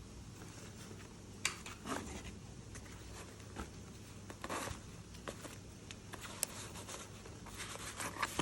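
Hands handling packaging and a makeup pouch: scattered light clicks, taps and rustles, with a sharper click about a second and a half in and another near the end.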